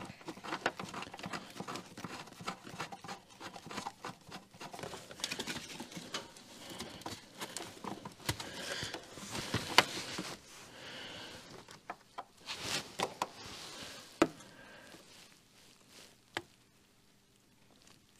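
Hand-work on car parts: a scatter of small clicks, taps and rustles as a part is fitted and fastened with a screw, with a couple of sharper clicks, dying away to quiet over the last couple of seconds.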